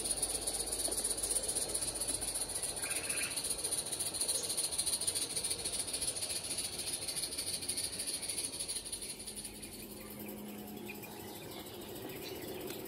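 Live-steam garden-railway train rolling along the track: a rattle of coach wheels on rail under a steady high hiss, fading about nine seconds in as it moves away.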